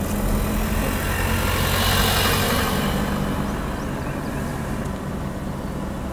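A vehicle's engine running steadily at low speed, a low hum under everything. A rushing noise swells up and fades again about two seconds in.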